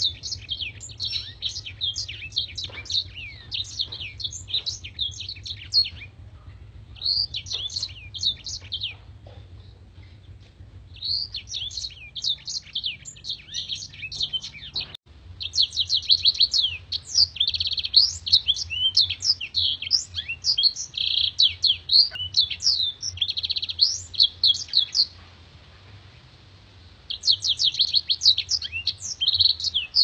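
Caged black-throated canary (blackthroat) singing: bursts of fast, high twittering and trilling notes, each a few seconds long, with short pauses between them and a longer run of song in the second half.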